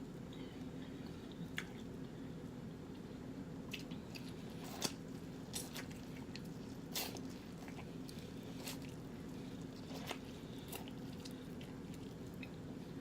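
Close-up eating sounds from seafood boil: wet chewing and lip-smacking, with scattered short smacks and clicks, the loudest about five seconds in.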